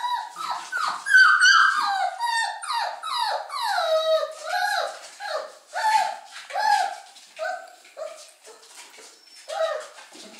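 One-month-old Petit Basset Griffon Vendéen puppies play-fighting, giving a quick string of short, high whining and yelping calls that bend down in pitch. The calls come thick and overlapping for about eight seconds, then thin out.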